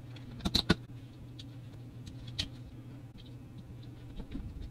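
Small plastic clicks and taps from a Trackmaster toy engine's motor chassis being handled and worked with a small screwdriver. A couple of sharp clicks come about half a second in, with lighter ticks after, over a steady low hum.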